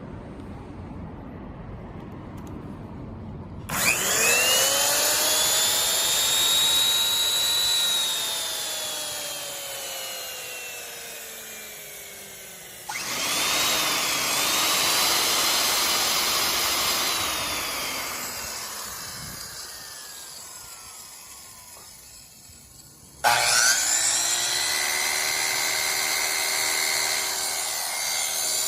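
Corded electric power tools switched on three times and run with no load: each starts suddenly with a high motor whine, runs for a few seconds, then coasts down with a long falling pitch. The third run stops more abruptly near the end.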